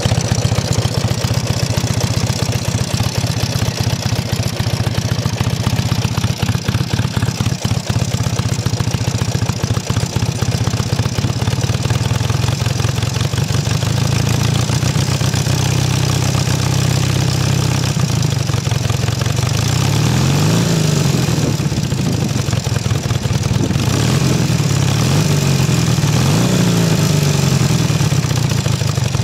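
Honda CB250T Hawk's 250 cc parallel-twin engine idling steadily, then revved and let fall back a few times in the second half. The uploader notes an abnormal noise in the engine.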